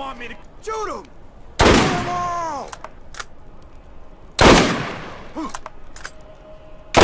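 Three sniper-rifle shots in a first-person shooter video game, each a sharp crack with a short ringing tail: about a second and a half in, halfway through, and at the very end. Between the shots come short shouted cries from the game's bandit characters, falling in pitch.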